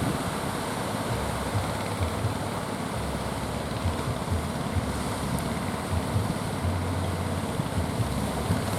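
Strong wind buffeting the microphone in uneven low gusts, over a steady rush of surf.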